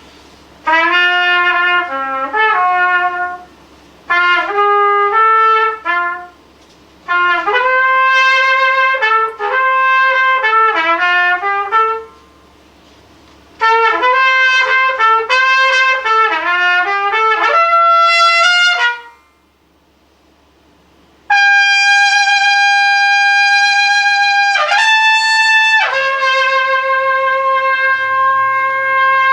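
Unaccompanied trumpet played solo: quick runs of notes in short phrases broken by pauses, then long sustained notes near the end, the last dropping lower.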